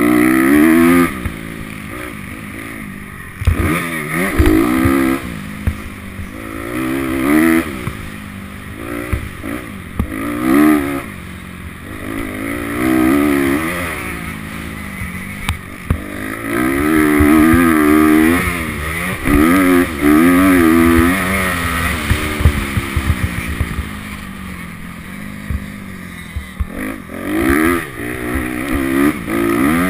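Honda CRF250R's single-cylinder four-stroke engine, heard from onboard, revving up hard and falling off again and again as the bike accelerates, shifts and slows for corners on a dirt track. Wind noise and short knocks from the bumps run under the engine.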